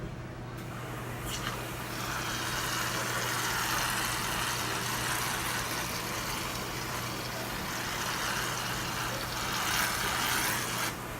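Aerosol can of shaving cream spraying foam in one long steady hiss, starting about a second in and cutting off near the end.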